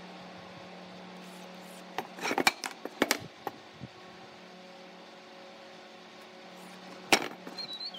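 Wooden boards and hand tools knocking against a wooden frame as they are handled and set down: a cluster of knocks about two to three seconds in and one sharp knock near the end, over a steady low hum.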